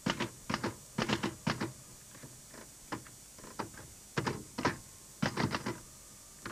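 Manual typewriter typing: keys strike in short, irregular bursts of a few strokes each, with pauses between.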